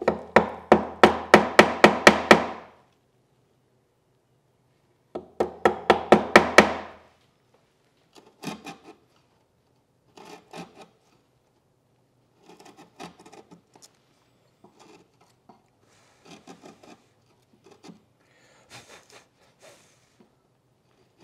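Chisel being chopped into the edge of a wooden cabinet case to cut a butt-hinge mortise, struck in two quick runs of sharp taps, about four a second. These are followed by fainter, scattered scraping and chip-lifting cuts as the waste is pared out.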